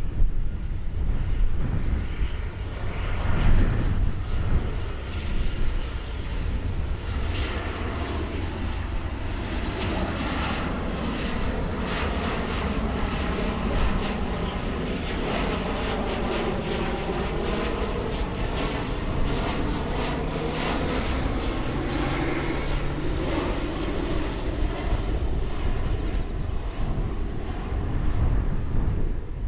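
Jet airliner flying low overhead, its engine noise sustained throughout, with a slowly sweeping, curving pitch as it passes over.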